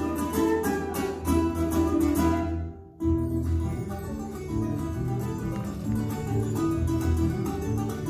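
Live Andean folk band playing: plucked small stringed instruments over conga drums with a steady beat. About two and a half seconds in, the music drops out abruptly and comes back a moment later.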